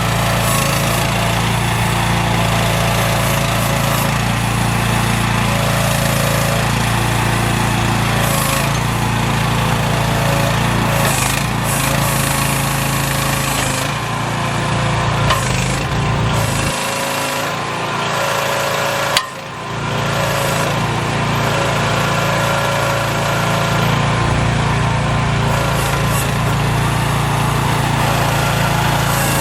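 AGT H12R mini excavator's small engine running steadily. Its low hum thins out for a couple of seconds about two-thirds of the way through and cuts out for a moment before picking straight back up.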